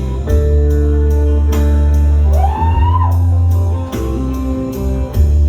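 Live rock band playing loudly: electric guitars over heavy bass and drums, with steady cymbal strokes and a note sliding up in pitch about two and a half seconds in.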